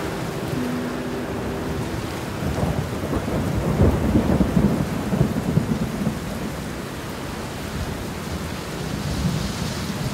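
Steady rain with a long rumble of thunder that swells about three seconds in, peaks around four seconds and dies away by about six seconds.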